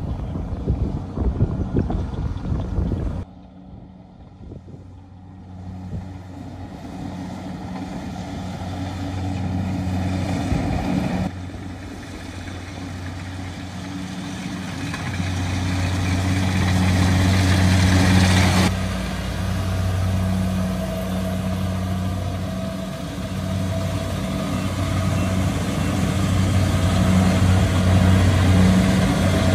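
Kubota DC70G combine harvester running steadily as it cuts and threshes rice, its diesel engine holding a constant hum. The level changes abruptly a few times, loudest near the middle and the end.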